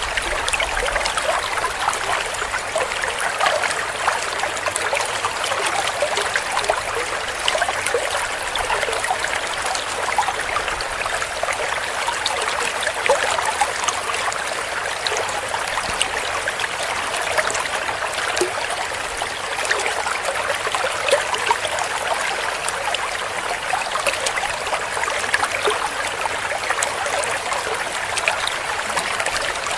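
Small clear stream flowing and gurgling, a steady rush of water dotted with many small splashes and bubbles.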